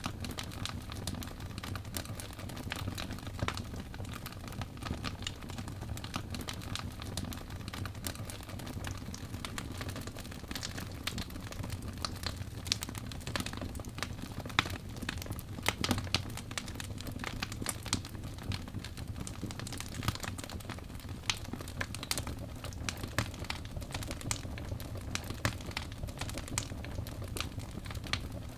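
Fireplace fire crackling: a steady low rumble of burning wood with irregular sharp crackles and pops.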